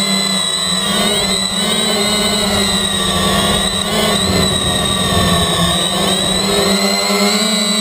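The motors and propellers of a MultiWii quadcopter, heard from the GoPro strapped to it, whining steadily in flight. Their pitch shifts a little up and down as the throttle changes, over a low rumble.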